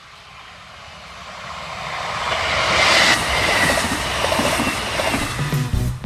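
Passing train on an electrified regional line: its rumble and rail noise build steadily to a peak about three seconds in and then stay loud as it goes by. A brief high tone is heard near the peak.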